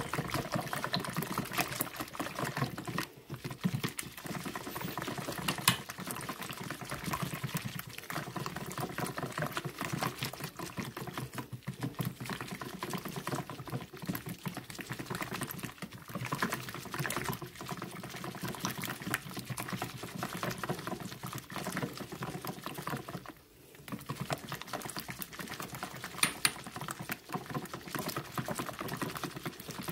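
Whisk beating a runny egg and lemon-juice mixture in a stainless steel bowl: rapid, continuous liquid sloshing strokes, with two short breaks, a few seconds in and about three quarters of the way through.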